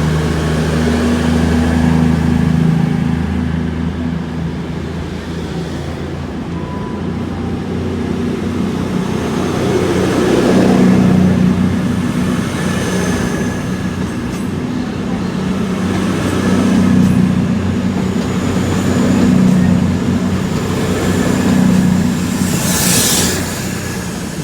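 CrossCountry Class 221 Super Voyager diesel multiple unit pulling out, its underfloor diesel engines running under power, swelling louder several times as each car's engine passes. A short hiss near the end.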